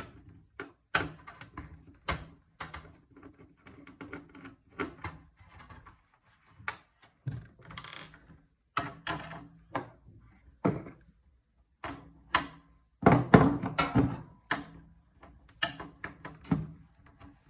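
Irregular clicks, taps and knocks of tools and metal parts being handled inside a desktop PC case during disassembly, with a louder cluster of knocks about thirteen seconds in.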